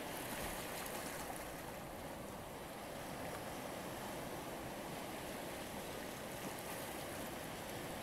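Shallow surf washing in over a pebble and rock shore: a steady rush of water.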